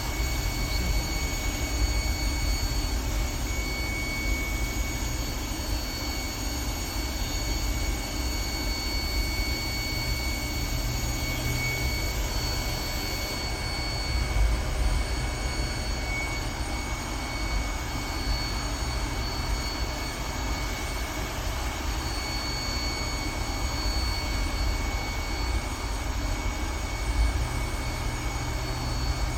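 A 2010 GMC's engine running steadily during a check for a random misfire (code P0300), a low rumble with a constant high-pitched whine over it.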